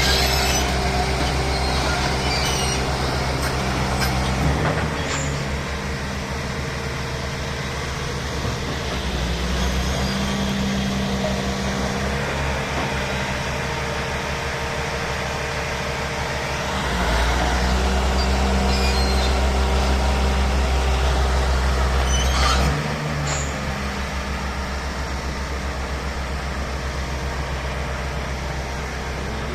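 Heavy diesel machinery running steadily with a low, throbbing hum. Its note shifts a few times, and it grows louder for several seconds past the middle before dropping back.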